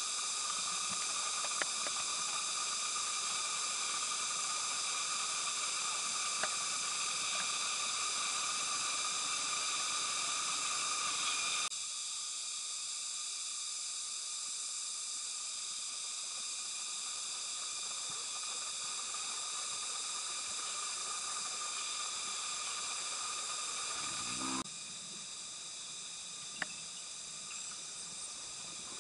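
Steady high-pitched insect chorus, many layered droning bands like cicadas in the tree canopy. It drops abruptly in level twice, about halfway through and near the end.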